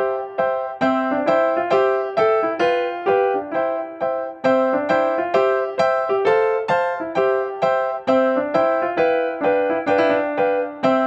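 Background music: a simple keyboard tune played as a steady run of evenly spaced notes.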